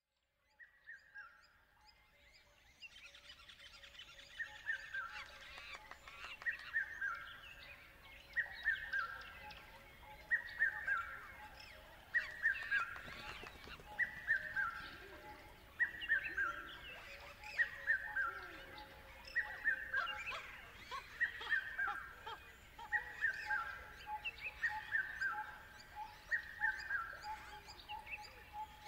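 A bird calling over and over, about once every two seconds: each call is a quick run of notes stepping down in pitch.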